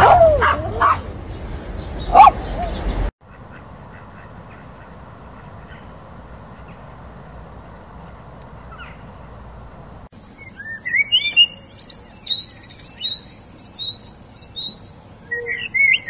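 A puppy giving a few sharp yips and barks, the last and loudest about two seconds in. Then several seconds of faint steady background noise. From about ten seconds in, a European robin sings quick, high twittering phrases.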